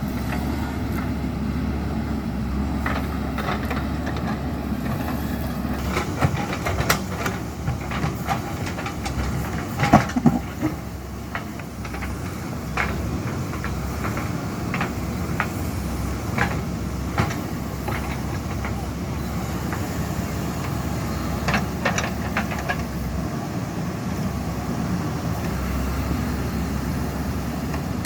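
JCB 3DX Super backhoe loader's diesel engine running steadily, with scattered sharp knocks and clanks, loudest in a cluster about ten seconds in.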